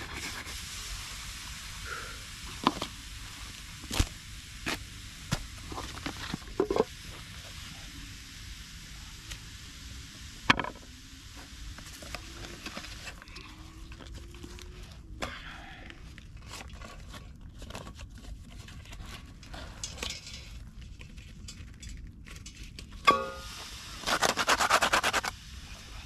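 Metal cooking pot and utensil knocking and clinking now and then over a steady outdoor hiss. Near the end comes a ringing metal clank, followed by a rattling scrape lasting about a second.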